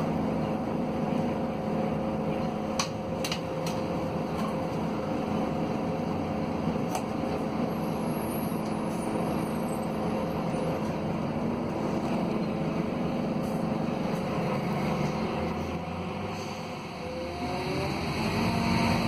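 Scania DC09 five-cylinder diesel of a Scania K280UB city bus running steadily, heard from inside the bus. Near the end the engine eases off, then picks up again with a rising pitch.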